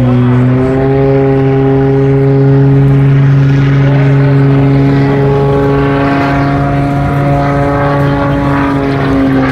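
Aerobatic propeller plane's engine droning overhead at a steady pitch, with a slight dip in pitch right at the start.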